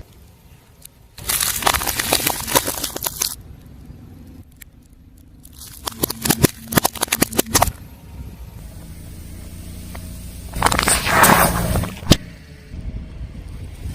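Brittle objects crackling and crunching as a car tyre rolls over and crushes them, in three separate bursts with quieter gaps between.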